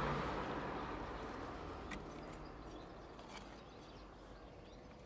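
A pond UV clarifier lamp being slid out of its cardboard packaging tube: a soft scraping hiss that fades away, with a few light clicks from handling.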